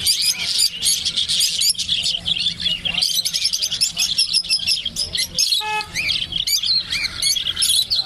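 Many caged budgerigars chirping and chattering at once, a dense, continuous warbling. One short pitched call cuts in a little past halfway.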